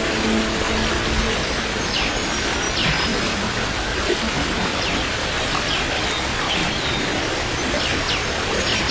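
Steady rain hiss with birds chirping in short, falling calls throughout. A low engine hum fades out about a second in.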